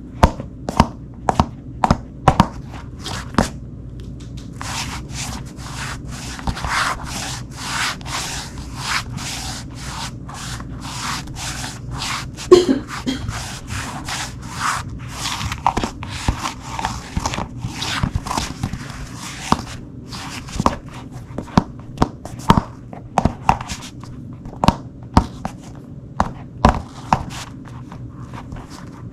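Shoes on a hardwood floor: irregular heel-and-sole taps with scuffing and rubbing. The steps crowd into quick shuffling in the middle, with a brief sole squeak about halfway through.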